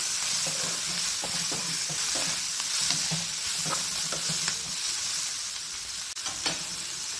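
Chopped onion, capsicum, ginger and garlic sizzling steadily in a frying pan while a spatula stirs them, scraping and tapping against the pan, with a few louder knocks about six seconds in.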